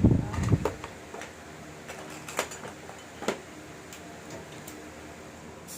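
Plastic slime tubs and lids being handled: a heavy knock right at the start, then scattered light clicks and taps.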